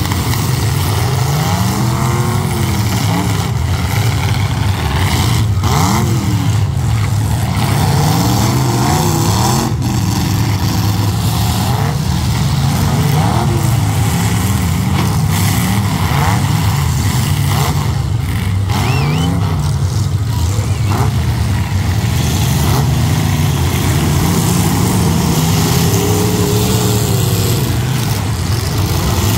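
Engines of several derby trucks running loudly and revving up and down again and again, overlapping, with a few sharp bangs from collisions.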